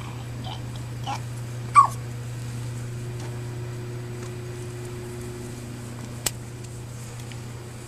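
A 32-day-old Yorkshire terrier puppy whimpering in a few short, high cries in the first two seconds, the loudest one falling in pitch. A sharp click comes near the end.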